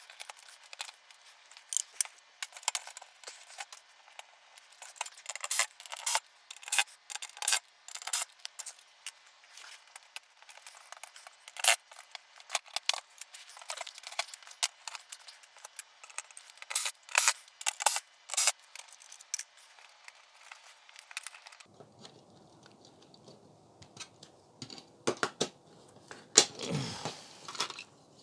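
Irregular sharp clicks and taps of small hard parts being handled while a flat-screen TV is taken apart, with a louder scraping knock near the end.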